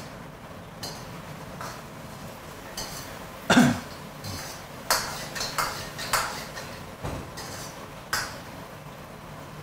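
Metal ladle scraping and clinking against a wok as sauce-coated pork ribs are stirred, in separate strokes every second or so, with one louder clank about three and a half seconds in.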